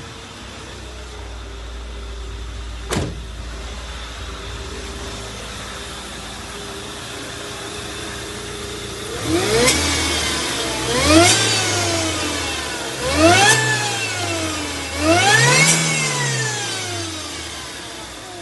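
Ford Fiesta 1.0 Supercharger's supercharged four-cylinder engine idling, with one sharp click about three seconds in, then revved four times in quick succession, each rev rising and falling back. It runs with a new belt tensioner in place of one that was damaged and slipping, and the air-conditioning pipe that was hitting the radiator fan has been moved clear.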